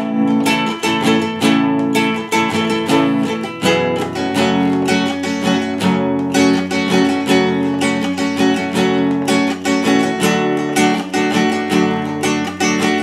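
Nylon-string classical guitar with a capo, strummed chords in a steady, even rhythm.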